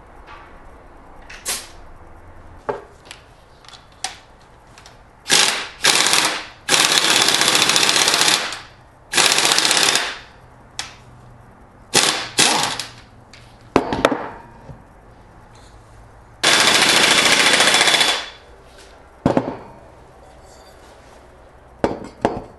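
Impact wrench hammering in bursts as it turns the nut of a pipe expander, stretching the end of an exhaust pipe. Several short bursts and three longer runs of about two seconds each, with metal clicks and clinks in between.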